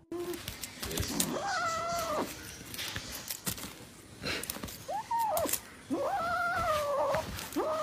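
A black kitten gives four drawn-out yowling meows, the longest over a second. Light clicks and rustles come between the calls as it plays with a wrapped sweet.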